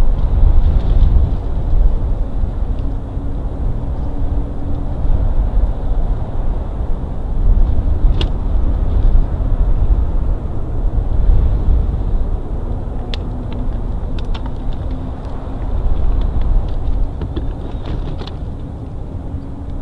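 Uneven low rumble of wind buffeting an outdoor nest-cam microphone, rising and falling in gusts, with a few faint sharp clicks about 8 s and 13 s in and again near the end.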